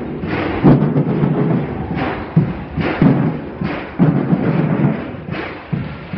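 Carnival street drum band playing loudly: a dense percussion rhythm driven by heavy, booming bass-drum beats with sharper drum strokes over them.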